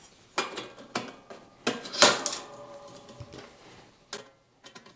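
Metal knocks and clinks of a diesel heater's exhaust silencer being handled and set down, the loudest about two seconds in with a brief metallic ringing after it.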